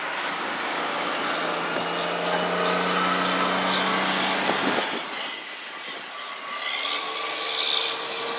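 Steady outdoor vehicle noise: a hiss with a faint engine-like hum, dipping slightly about five seconds in.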